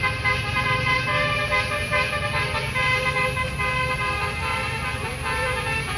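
A bus's basuri musical air horn playing a tune: several horn notes sound together and step from pitch to pitch, over the low rumble of a bus engine.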